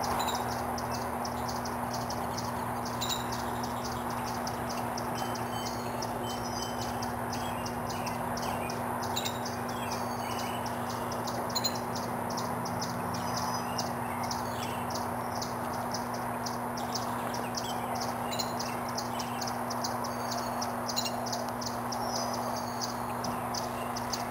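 Virginia rails calling: short high calls repeated about three or four times a second, with a few longer sliding calls mixed in.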